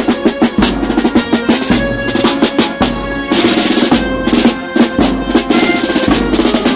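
A procession band of drums playing: snare drums in rapid rolls and a bass drum beating, with held instrumental notes sounding over them.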